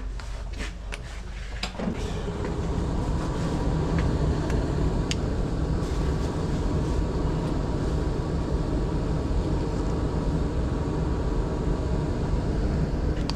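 An HVAC unit is switched on: a few light clicks, then its blower motor spins up about two seconds in and runs steadily with a loud even rush.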